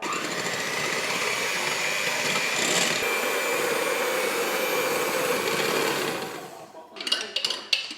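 A small electric motor appliance starts suddenly and runs steadily with a whirring hum for about six and a half seconds, then winds down. A run of sharp clicks and clinks follows near the end.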